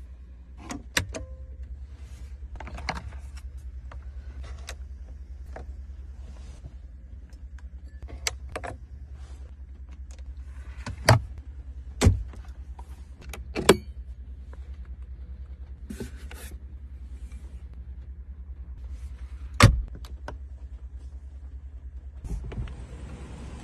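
Steady low hum inside a Rolls-Royce Cullinan's cabin, broken by a series of sharp clicks and knocks from its interior fittings being handled, four of them louder than the rest. A steady hiss comes in near the end.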